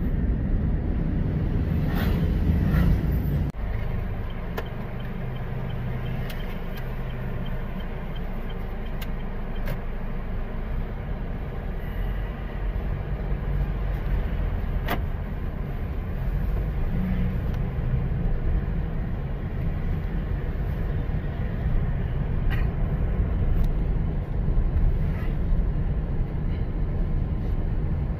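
Car driving, heard from inside the cabin: a steady low engine and road rumble, with a few sharp clicks or knocks along the way and an abrupt break in the sound about three and a half seconds in.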